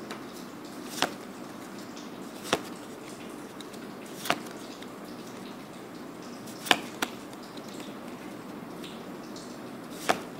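Magic: The Gathering cards being flipped through one by one, each card snapped off the front of the stack with a sharp click: about six clicks at uneven spacing, two close together past the middle, over a steady low hiss.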